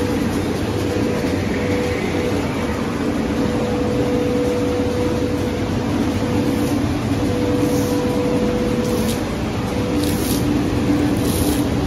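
Laminated glass recycling machinery and its belt conveyor running with a steady mechanical noise and a couple of held hum tones. Brief hissing rushes come in the second half.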